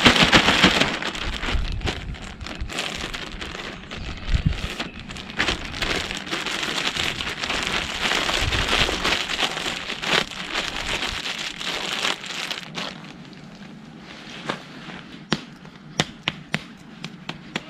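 Plastic Ziploc bag crinkling and rustling as flour and yogurt are squeezed and kneaded into dough inside it. About two-thirds of the way through the rustling eases off, and a few sharp clicks follow near the end.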